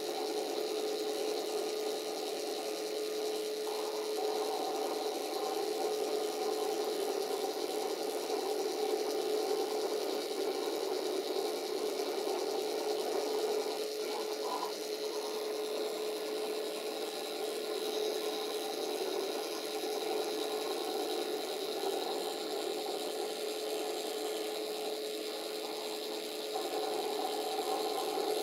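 CNC-controlled fused-filament 3D printer running as it extrudes plastic: a steady whine over a rough, rasping mechanical noise, shifting a little in pitch at a few points.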